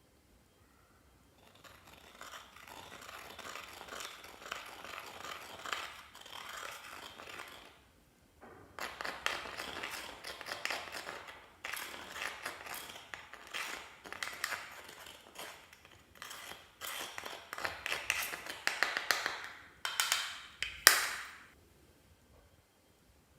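Clear slime being mixed and squished, giving sticky crackling and clicking in five stretches of a few seconds each with short pauses between them. The sharpest crackle comes near the end.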